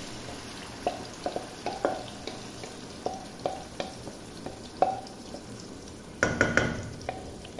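Marinated chicken being scraped from a bowl into hot oil in a metal pot, sizzling steadily, with a string of short taps and scrapes against the pot. Near the end comes a quick run of ringing clinks on the metal.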